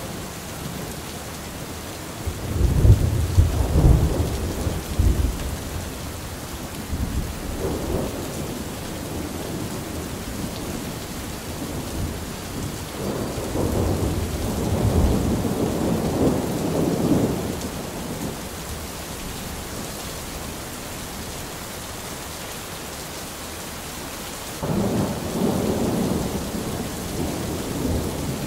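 Steady rain falling, with three rolls of thunder: the loudest about two seconds in, another near the middle, and a third starting near the end.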